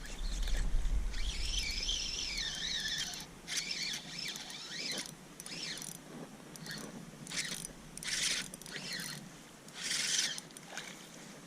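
A hooked smallmouth bass being fought in on a spinning rod, with short splashes at the water's surface repeating through the second half. A high wavering whine runs through the first few seconds.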